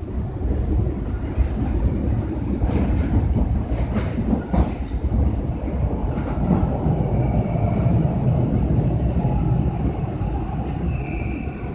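Toronto subway train heard from inside the car, running on the rails and slowing as it arrives at a station: a steady low rumble with a few clacks over the track about three to four seconds in, and a faint high squeal of wheels or brakes starting to come in near the end.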